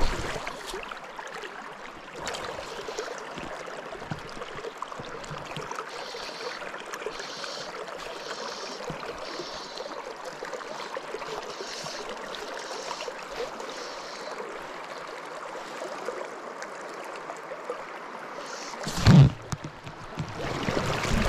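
River water running steadily, a constant rushing hiss of a flowing stream. A single brief loud thump comes near the end.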